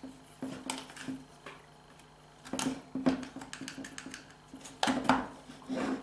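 Irregular clicks and knocks of hard plastic and metal as the Mercedes W202 gear selector and reverse light switch assembly is handled and its housing is pried apart. A faint steady low hum runs underneath.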